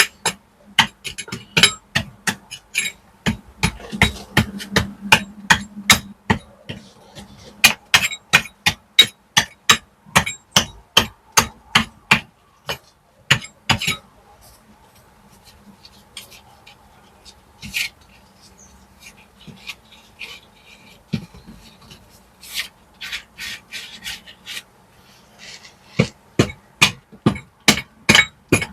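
Hammer striking a chisel in quick runs of sharp metallic knocks, about two to three a second, chipping out old mortar and loose stone from a cobble wall; the strikes thin out to a few scattered knocks in the middle, then pick up again near the end.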